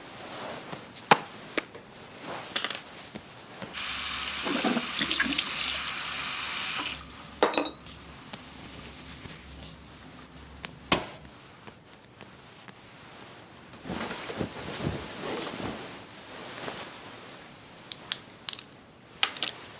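Water running for about three seconds, with scattered sharp clicks and knocks before and after: studio-recorded foley.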